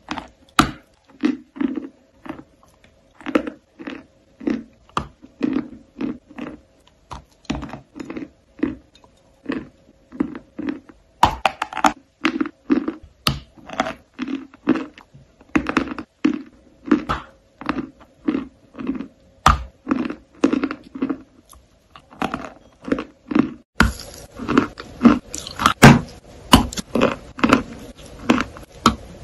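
Close-up mouth sounds of chewing crumbly white blocks: crisp crunches at a steady pace of about two a second. Near the end the crunches get louder over a steady hiss.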